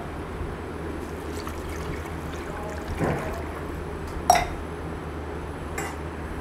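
A glass of water poured from a steel tumbler into a metal pot of raw mutton pieces, splashing over the meat. A single sharp clink stands out about four seconds in.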